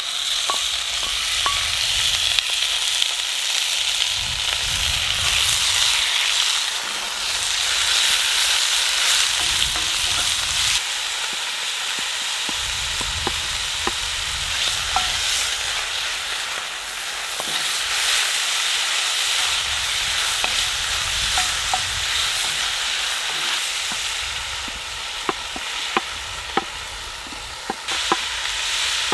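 Cubed beef searing in a hot cast iron skillet, a loud steady sizzle, with sliced peppers and onions added to the pan. Sharp little pops and ticks come through the sizzle, most often in the last few seconds.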